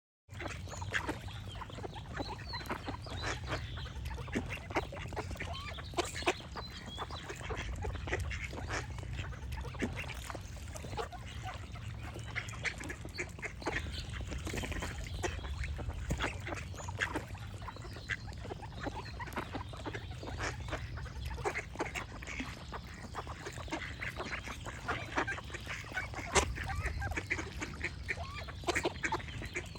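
A group of ducks quacking and calling, many short calls overlapping throughout, over a steady low rumble.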